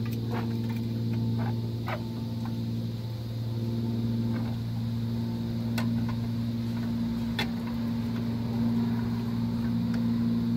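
A steady machine hum, with scattered sharp metallic clinks as drum brake shoes and their springs are handled on the backing plate.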